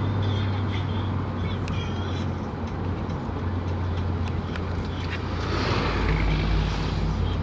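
A road vehicle on the move: a steady low engine drone with tyre and road noise. A louder rush of noise swells from about five and a half to seven seconds in.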